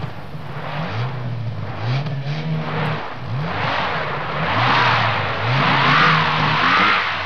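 Race car engine sound effect, revving up through the gears again and again, with a higher whine rising and falling over the second half, like cars speeding past.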